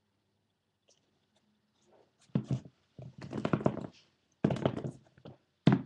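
Sneakers handled close to the microphone and set down on a wooden table: a run of knocks, taps and scuffing, in four or five short bursts starting about two seconds in.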